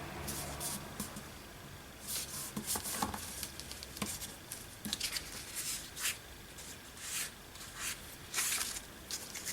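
Paper rustling and crinkling in short, irregular bursts as journal pages are handled and pressed down onto a glued hinge.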